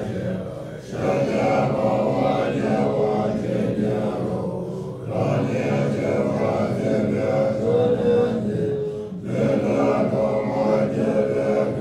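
Background music: a sung choral chant in long held phrases, each breaking off briefly every four seconds or so.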